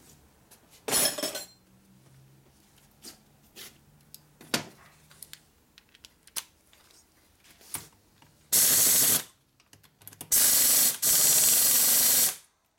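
Pneumatic ratchet running in two bursts, one under a second and one of about two seconds, its air exhaust hissing loudly as it backs out a top-end bolt on an S&S 113ci Evo engine. Earlier, a metal clatter about a second in and light clicks of hand tools being handled.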